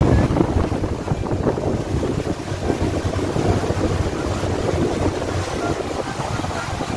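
A motorboat under way: its engine running steadily with water rushing and churning in the wake, and wind buffeting the microphone.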